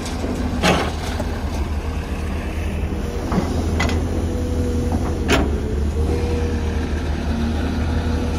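Heavy diesel earthmoving machine running steadily under load, with a steady whine over the engine and three sharp knocks.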